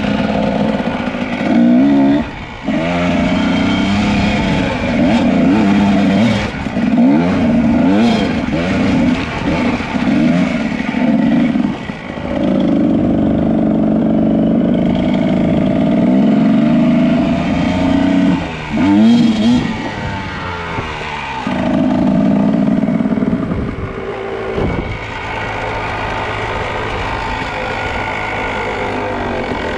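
Kawasaki KDX220 dirt bike's two-stroke single-cylinder engine revving up and down repeatedly as the bike is ridden, with stretches of steady throttle in between.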